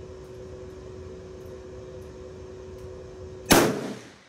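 A single shot from a Swiss K11 rifle in 7.5×55mm Swiss, a sharp crack about three and a half seconds in that dies away over half a second. Under it, a generator hums steadily with a held two-note tone.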